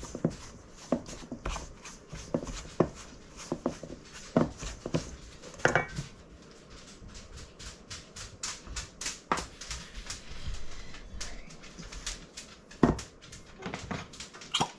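Hands kneading sticky bread dough on a counter: irregular soft thumps and slaps, with a run of quick fine sticky ticks in the middle.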